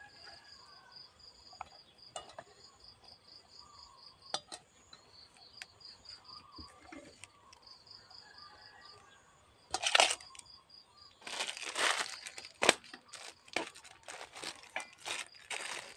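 Crinkly rustling and a few sharp clatters of hands handling food and packaging by a steel pot, loudest from about ten seconds in. Before that a faint, high insect chirping repeats about four times a second.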